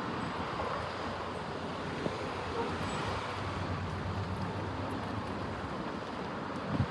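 Steady vehicle noise, a continuous low rumble with an urban background hum, and a brief knock near the end.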